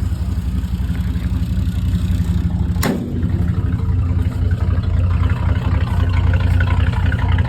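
Chevrolet C10 pickup's engine idling steadily on a cold start, a low, even exhaust note that grows a little louder in the second half. A single sharp click sounds about three seconds in.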